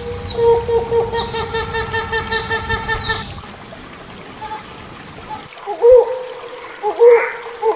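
Hornbill calls from a hornbill-caller recording. First comes a fast pulsing call with thin, high falling chirps over it. After a quieter gap, loud hooting notes begin about six seconds in and repeat roughly every second.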